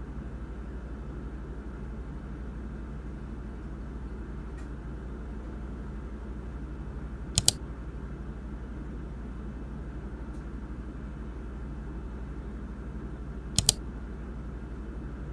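Computer mouse double-clicked twice, about six seconds apart, each a sharp pair of clicks, over a steady low hum.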